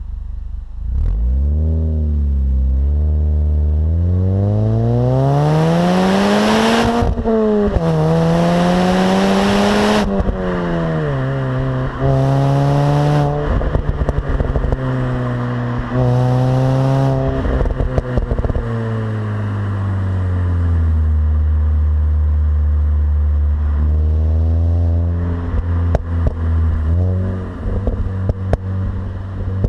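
Mini Cooper S R53's supercharged 1.6-litre four-cylinder engine on its stock exhaust, revving: the pitch climbs for several seconds, drops, climbs again, then steps down and holds, settles low and steady, and rises once more. A run of sharp crackles comes in near the end.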